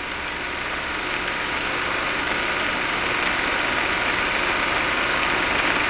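An engine running steadily, with no clear pitch, slowly growing louder, with faint light ticks over it.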